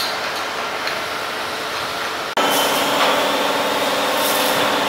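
Steady noise of factory machinery running. About two and a half seconds in it cuts off abruptly and gives way to a louder, steady machine hum with a held tone.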